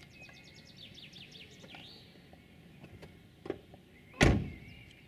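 A bird sings a quick trill of short falling notes, then about four seconds in a car door slams shut with a loud thump.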